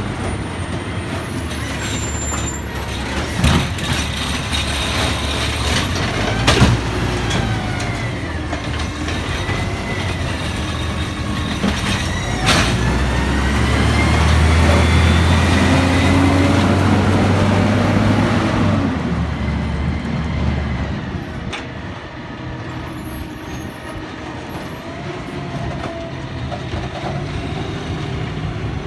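Garbage truck's diesel engine running, rising to a louder drone about halfway through and easing off near the end, with high squeals and a few sharp bangs along the way.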